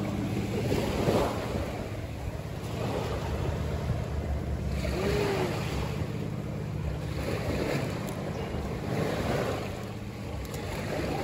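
Surf washing on a beach, with wind buffeting the microphone.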